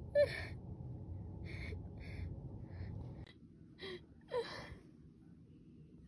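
A voice gasping sharply, then short breaths and two brief rising whimpers, over a low rumble that stops about halfway.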